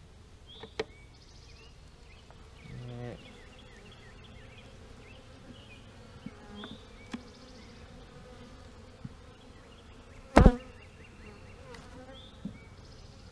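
Honey bees buzzing in a steady hum around opened hive boxes, with a few wooden knocks as frames and a hive tool bump the boxes, the loudest about ten seconds in.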